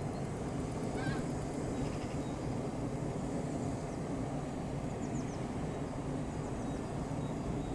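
Low steady rumble of an NS ICM (Koploper) electric train pulling slowly into the platform. A brief wavering high call sounds about a second in, with a few faint short chirps later.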